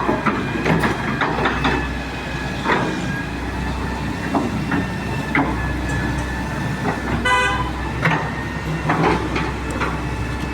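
Diesel engine running steadily at a street construction site, with scattered clanks and knocks, and a brief vehicle horn honk about seven seconds in.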